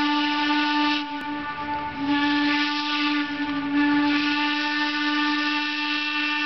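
Steam whistle of wood-burning Heisler No. 3, a geared narrow-gauge steam locomotive, blowing as the train approaches: a blast that stops about a second in, then a long steady blast from about two seconds in, with steam hissing under it.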